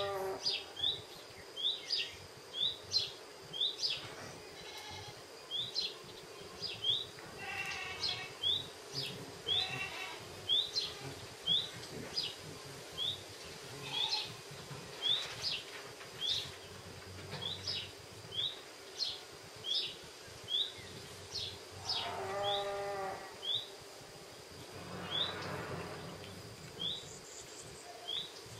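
Outdoor animal sounds: a steady string of short, high chirps, about one and a half a second, with several longer, lower animal calls spread through it, the strongest around 8, 10 and 22 seconds in.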